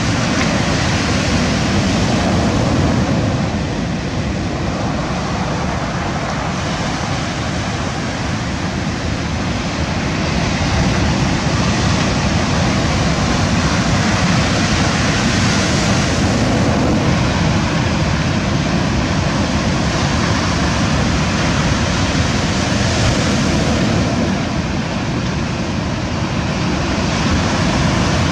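Ocean surf breaking and washing over a stony beach: a loud, steady rush that slowly swells and eases.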